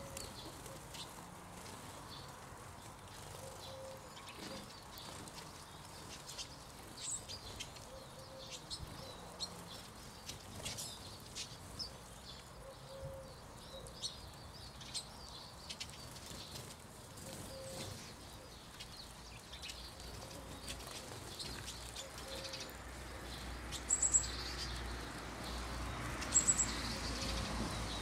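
Eurasian siskins twittering with short high chirps while feeding, with occasional wing flutters as birds come and go. Three sharper, louder high chirps stand out near the end.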